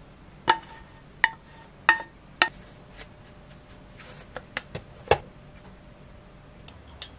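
Frying pan clinking against the rim of a ceramic bowl as pasta is tipped out of it: four sharp clinks with a short ring in the first two and a half seconds. A few lighter clicks follow, then one harder knock of dishware about five seconds in.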